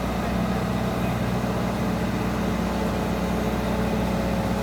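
Road roller's engine running at a steady speed, an even low drone.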